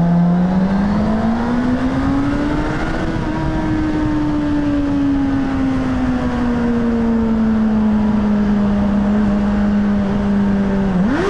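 Suzuki GSF 600 Bandit's inline-four engine through its stock exhaust, accelerating in a tunnel: the engine note climbs over the first few seconds, eases back to a steady cruise, then a quick throttle blip rises and falls near the end.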